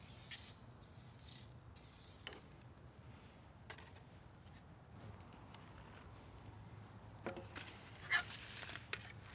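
Faint, sparse clicks and scrapes of metal grill tongs on the grate and a steak tray, with a short soft hiss about eight seconds in.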